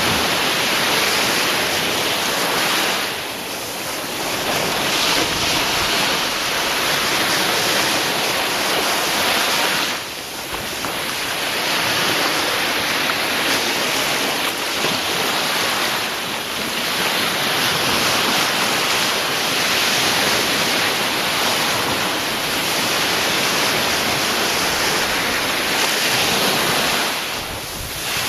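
Sea surf: waves washing in as a steady rush, easing off briefly now and then before building again.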